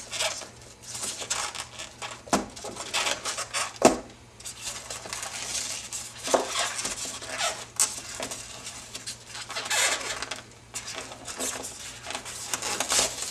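Heavy little metal counterweight pieces of a die-cast scale crane model clinking and clattering as they are handled and set down. Irregular knocks and rattles, with one sharp knock about four seconds in.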